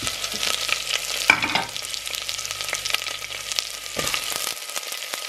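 Ghee and olive oil sizzling and crackling with ginger, garlic and cumin seeds in a steel pressure cooker. Frozen vegetables are dropped in by hand: a sharp knock about a second in, the loudest moment, and another near four seconds.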